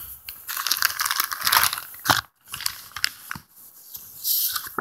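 A clear plastic bag of papers crinkling and rustling as it is handled, in irregular bursts with short pauses.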